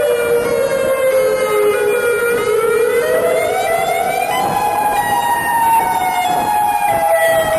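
Outdoor tornado warning siren wailing loudly. Its pitch dips slightly, rises steeply about three seconds in, then slowly falls again.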